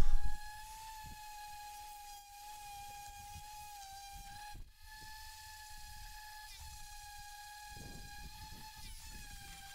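Corded electric orbital sander running on the bare timber top of an old ironing board, a steady high whine that dips briefly in pitch a couple of times as it is worked over the wood. It is sanding the timber ready for lacquer.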